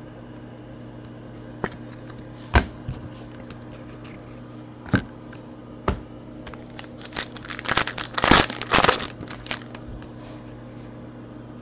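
Foil trading-card pack being torn open and crinkled: a dense crackling rush lasting about two seconds, starting a little past the middle. Before it come a few separate sharp taps from handling cards and a plastic top loader.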